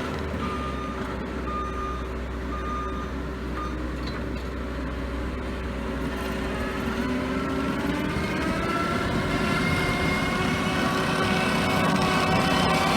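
Skid steer's diesel engine running under load, rising in pitch and getting louder from about halfway through. Over it, in the first few seconds, come four short beeps about once a second.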